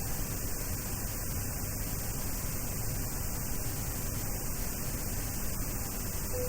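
Steady static-like hiss over a low rumble, unchanging throughout.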